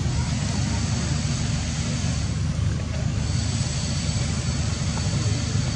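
Steady low rumble with a hiss over it, unchanging throughout.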